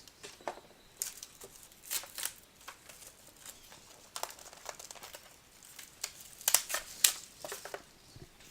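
Plastic wrapping crinkling and tearing in irregular sharp crackles as a sealed trading-card box is unwrapped and opened.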